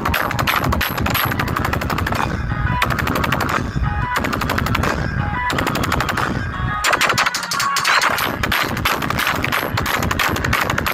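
Rapid machine-gun fire sound effects blasted through a DJ competition sound system, broken by a few short gaps with brief beeping tones in the middle.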